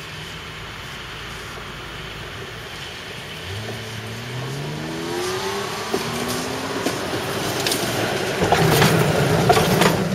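Older high-floor Konstal tram approaching on its track: the electric traction motors whine, rising in pitch as it picks up speed. Sharp clicks and a growing rumble from the wheels on the rails follow as it comes closer.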